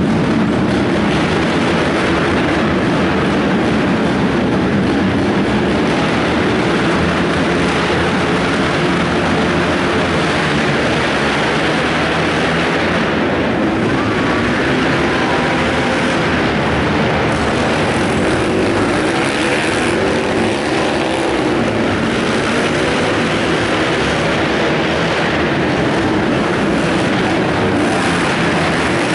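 Several racing ATVs running hard around a dirt TT track, their engines loud and unbroken throughout.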